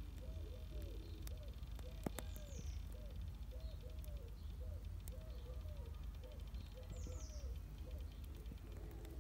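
Pigeons cooing in a steady run of short, arching low notes over a steady low rumble, with a couple of quick high chirps from a small bird.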